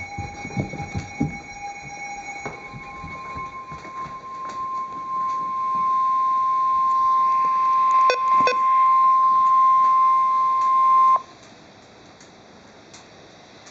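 NOAA Weather Radio 1050 Hz warning alarm tone: a single steady beep held for about eight and a half seconds, louder in its second half, announcing a severe thunderstorm warning. It cuts off suddenly, leaving radio hiss. Fainter tones and a few clicks come before it.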